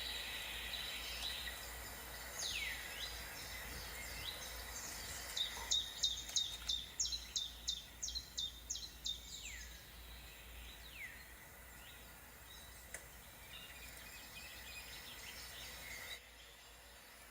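Wild birds calling and singing: several quick down-sweeping whistled calls, and from about six seconds in a rapid run of about a dozen sharp high notes, roughly three a second, lasting about four seconds. A thin steady high tone runs under the first few seconds.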